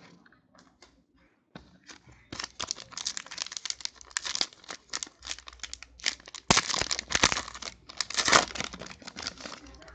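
Foil wrapper of a Panini football trading-card pack being torn open and crinkled by hand. The crackling starts about two seconds in and is loudest a little past the middle, as the pack is ripped apart.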